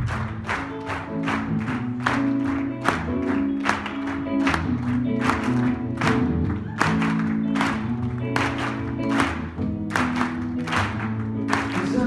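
Live soul music: keyboard chords with the audience clapping along on the beat, about two claps a second.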